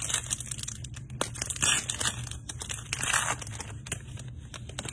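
A 2022 Elite football trading-card pack's wrapper being torn open and crinkled by hand, in several short bursts, the loudest about a second and a half in and again about three seconds in.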